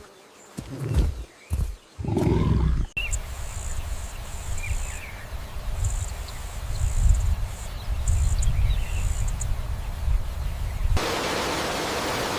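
Jungle soundscape in edited pieces. It opens with short, deep growl-like animal calls, then short high buzzes like insects over a low rumble, and cuts to a steady rushing noise near the end.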